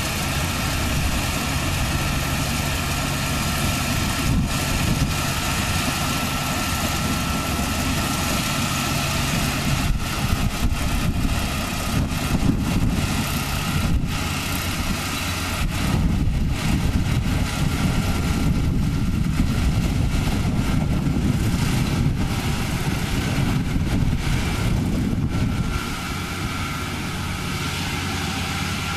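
Small crawler rice combine harvester running steadily as it cuts rice, its engine droning throughout. It gets louder for a stretch past the middle and drops back a little near the end.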